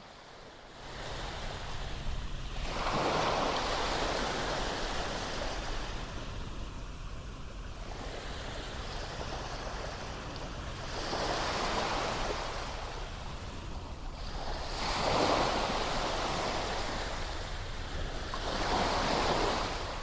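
Ocean waves washing onto a shore, swelling and falling back about four times.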